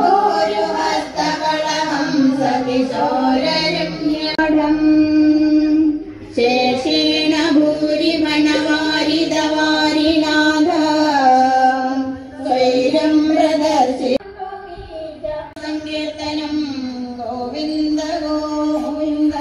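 A song with a high female singing voice. It cuts off abruptly and restarts a few times, about a third of the way in and again about two-thirds in.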